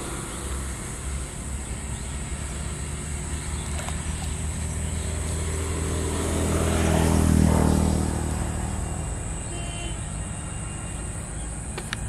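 A motor vehicle's engine running past, a low hum that swells to its loudest about seven seconds in and then fades away.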